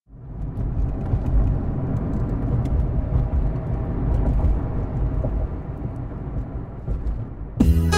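A car driving, heard from inside the cabin as a steady low road and engine rumble. Music starts suddenly near the end.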